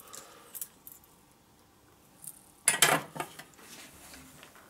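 Metallic clinks of tools being handled and set down: a few light clicks, then a short loud clatter nearly three seconds in.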